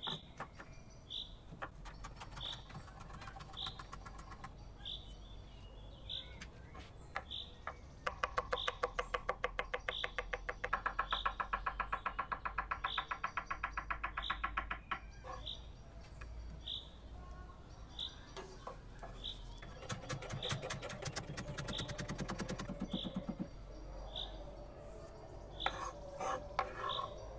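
A kitchen knife chopping fast on a wooden cutting board, cutting vegetables and herbs in two rapid runs of sharp strokes, with scattered knocks near the end. Throughout, a bird repeats a single high chirp about once every second or so.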